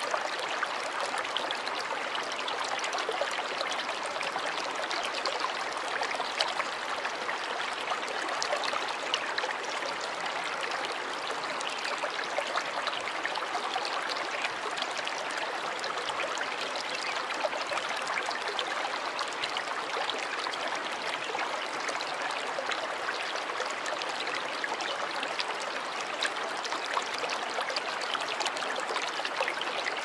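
Small paludarium waterfall running steadily, water trickling over rocks.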